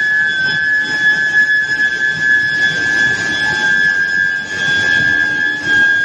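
Medium-frequency induction heating furnace running, giving a steady high-pitched whine over a constant machine noise haze.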